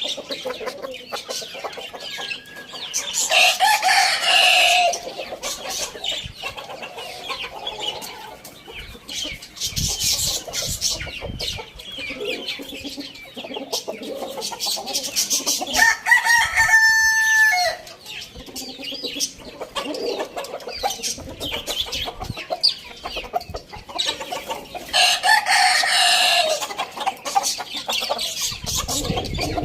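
Rooster crowing three times, spread across the stretch, with chickens clucking in between.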